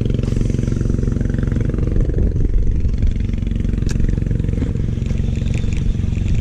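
Small boat's engine running steadily with an even, low mechanical drone.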